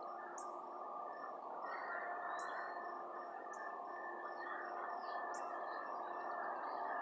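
Songbirds chirping in the trees: sharp high chirps every second or two, with a few short sweeping calls. Underneath runs a steady hum that slowly grows louder.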